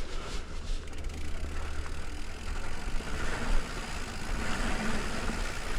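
Mountain bike being ridden on a dirt trail: steady low rumble of wind and handling noise on a bike-mounted or helmet camera, with tyre and trail noise that grows a little louder in the second half.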